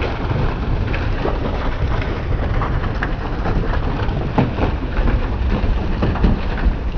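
A mass of catfish writhing and slapping against one another in a concrete tank, a continuous wet patter of many small slaps over a steady low rumble; the fish are dying after being doused with salt.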